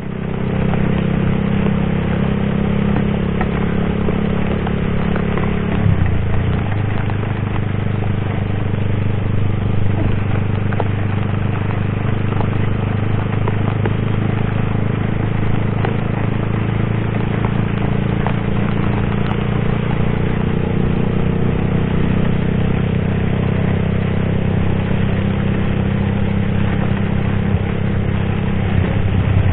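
Sport motorcycle engine running under way in heavy rain, with a steady rushing noise of wind and wet road. The engine note drops about six seconds in and changes again later on.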